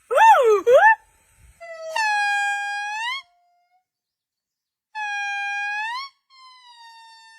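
A monkey calling: two quick wavering calls, then three long, even-pitched calls that each turn up in pitch at the end; the last is fainter.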